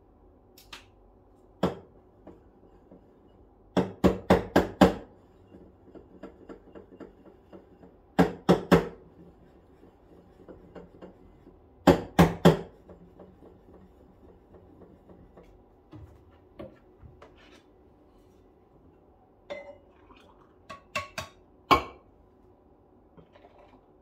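Kitchenware clinking and knocking: groups of three to five quick sharp strikes every few seconds, then a few lighter, scattered ones.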